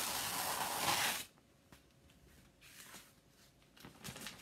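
Adhesive Chalk Couture silk-screen transfer being peeled up off the pasted surface: a loud crackling rip that stops abruptly about a second in, then faint rustling as the sticky transfer is handled.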